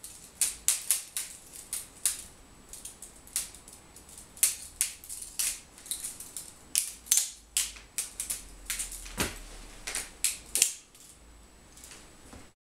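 Böker Plus balisong being flipped: its handles clack and click against each other and the blade in quick, irregular strings of sharp metallic clicks, a few a second.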